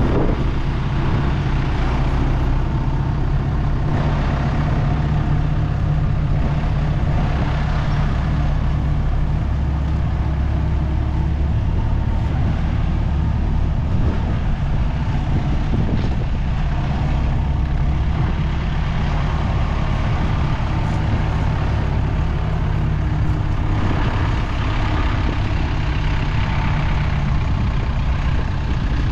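Heavy diesel engine running steadily with a deep hum, its note shifting slightly a few times.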